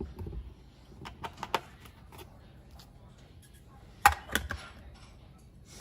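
Clicks and knocks of small hard objects being handled, with a louder clatter a little after four seconds in.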